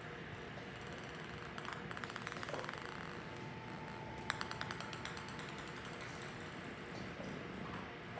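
Plastic ping pong ball bouncing and ticking across a ceramic tile floor, in two runs of quick light taps. The second run starts with a sharper hit about four seconds in and trails off over the next couple of seconds.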